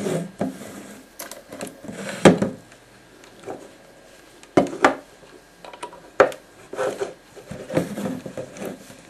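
Irregular clicks, knocks and rubbing as an RCA lead and jack adapter are handled and plugged into the noise maker and a small portable guitar amp. There are a few sharper knocks, about two seconds in and again at about four and a half and six seconds.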